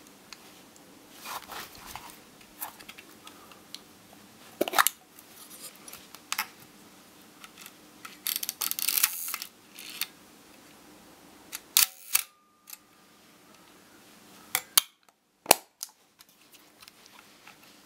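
Mechanical clicks and clatters from a Praktica Super TL 35 mm film SLR body as it is handled and its back cover is opened and closed. The sharp clicks are separate, with a longer rattling clatter about eight seconds in.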